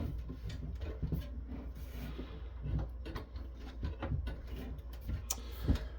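Scattered light clicks, knocks and scrapes of a circuit board and metal parts being worked and pushed inside a Cisco network switch's chassis, the board binding and not sliding free.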